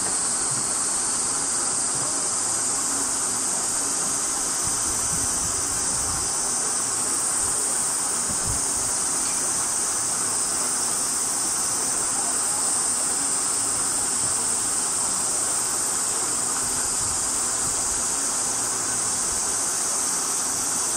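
Steady, unbroken high-pitched insect chorus over a steady low rushing noise.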